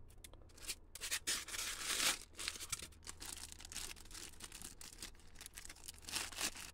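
Styrofoam packaging rubbing and squeaking as the foam lid is pulled off the insert, then a clear plastic bag crinkling and rustling in the hands, in irregular bursts.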